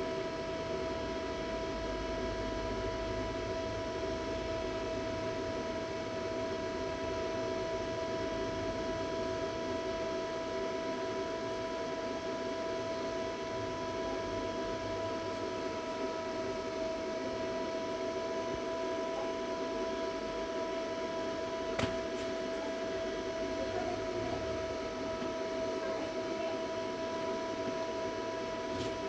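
Steady electrical hum and whine from battery-charging equipment running while a lithium cell charges, several steady tones held without change. One faint click about 22 seconds in.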